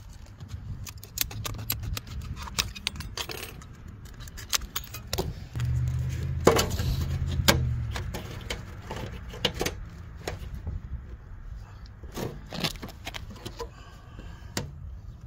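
Thin perforated aluminum gutter guard being handled and pressed into a gutter: scattered light metallic clicks, taps and rattles, over a low rumble that swells for a couple of seconds around the middle.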